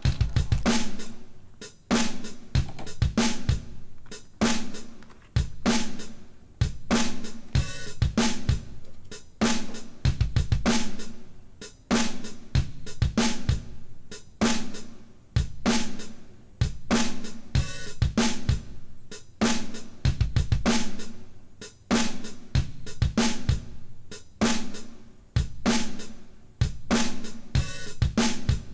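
Background music: a drum-heavy track with a steady beat of kick, snare, hi-hat and cymbal hits.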